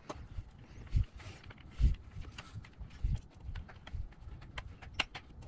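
Number 4 wood screws driven by hand screwdriver through a small limit switch into an MDF base: faint clicks of the tool and a few dull, irregular knocks about a second apart.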